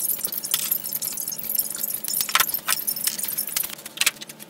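Steel universal-joint yokes of a small tractor PTO shaft clinking and rattling as the shaft is handled and set into a bench vise: a run of sharp metallic clicks and jingles.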